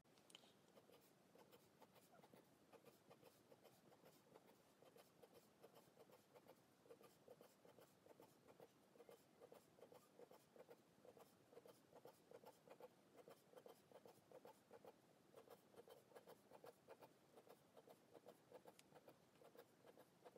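Faint scratching of a felt-tip pen on paper in quick, short strokes, crossing out number after number with an X.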